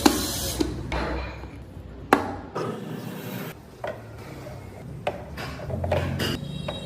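Wood being worked by hand: several sharp knocks, with scraping and rubbing on wood between them.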